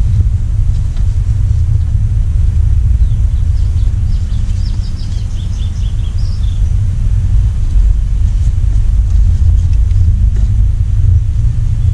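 A steady low rumble throughout, with a few short high bird chirps about four to six seconds in.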